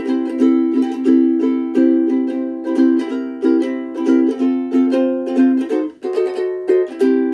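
Sumi UK-GT3M soprano ukulele with a Honduras mahogany body, strummed in a steady rhythm, each chord ringing on between strokes. The playing breaks briefly about six seconds in, then resumes.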